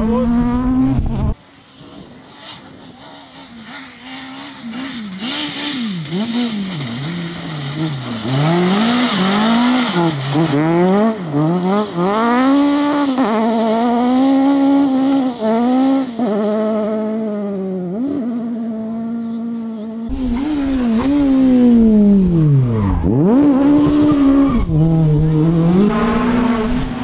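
Suzuki Swift rally car driven flat out, its engine note climbing through the revs and dropping again over and over with gear changes and lifts. The passes are cut together, with sudden jumps in loudness where the shot changes.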